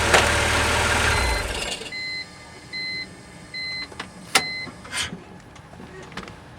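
BMW E46 330i's inline-six engine idling, then shut off about a second and a half in, the low hum dying away. Five evenly spaced electronic beeps follow, then two sharp clicks.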